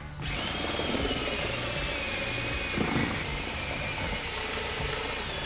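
A small motor running steadily with a high, slightly wavering whine over a rough noise, starting suddenly and cutting off abruptly.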